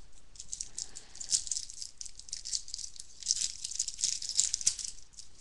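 Foil trading-card pack wrapper crinkling and crackling as it is handled and torn open, a dense run of crisp, high-pitched crackles.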